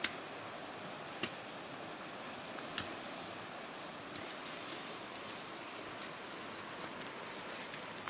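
A hoe blade chopping into soil and plant roots, three sharp strikes about a second and a half apart, then a few lighter knocks, over a steady hiss.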